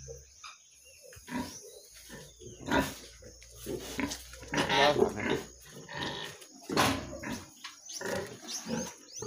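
Pigs grunting in short, irregular bursts, with several louder grunts through the middle.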